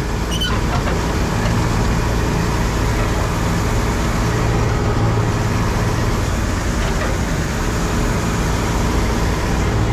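Combine harvester running steadily under load, its engine and threshing machinery droning while the unloading auger pours wheat into a trailer alongside.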